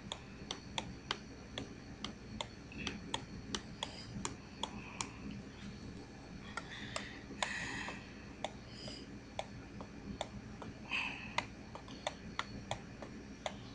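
Faint, regular ticking, about two ticks a second, with a couple of soft rustles.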